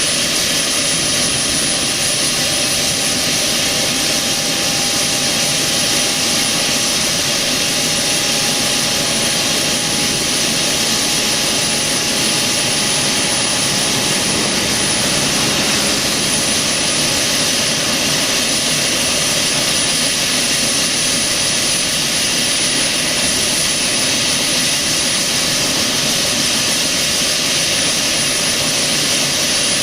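Bell 206LT TwinRanger's turboshaft engines running steadily during startup: a constant turbine whine and rushing hiss, with a high steady tone and a fainter lower tone that fades out about halfway through.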